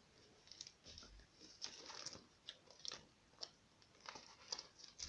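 Faint, irregular crinkling and clicking of a clear plastic bag of model kit parts being handled.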